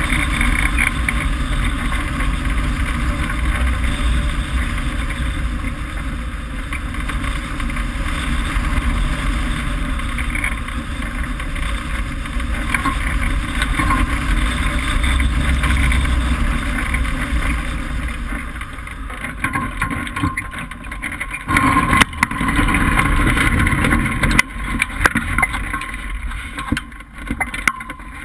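Wind rushing over a hang glider's wing-mounted action camera during the final glide, a loud steady airflow noise that eases off as the glider slows to land. Near the end come irregular knocks and rattles as the glider is set down on the grass.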